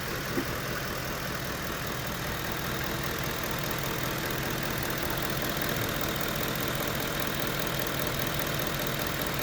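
2010 Ford F-150's 5.4-litre V8 idling steadily with a fine, rapid ticking running through it: the knocking sound that the new owner cannot identify and is asking about.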